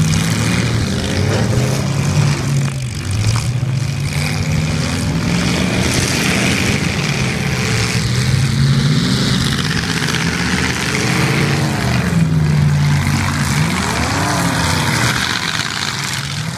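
Engines of several demolition derby cars running loud and being revved, the pitch rising and falling several times.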